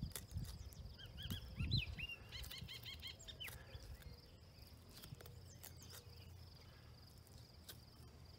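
A bird calling: a few quick chirps about a second in, then a rapid run of repeated notes that stops about three and a half seconds in, over a steady high insect trill. Faint scattered clicks and a few low thumps in the first two seconds.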